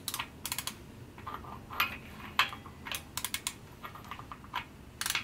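Light metallic clicks and rattles in short, irregular clusters, from a torque wrench and socket being handled on the head bolts of a Ford 172 diesel engine during the torque sequence.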